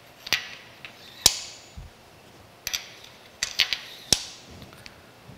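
Metal arbor spacers clinking and knocking against each other and the arbor as they are slid onto a horizontal milling machine's 1-inch arbor: a series of sharp metallic clicks, the loudest about a second in, with a quick cluster of clicks near the end.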